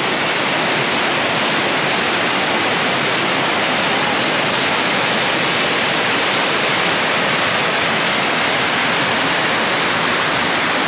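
Waterfall pouring over rock ledges and cascading through a rocky stream: a loud, steady, even rush of falling water.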